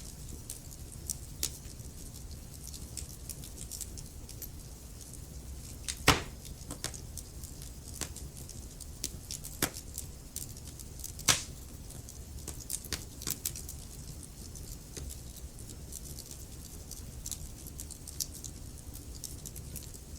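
Wood fire crackling, with irregular sharp pops and snaps over a steady low rumble of burning; two louder pops come about six and eleven seconds in.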